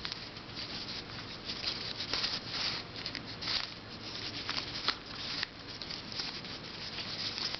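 A plastic twisty puzzle being turned by hand, its pieces clicking and scraping as the layers move in irregular turns.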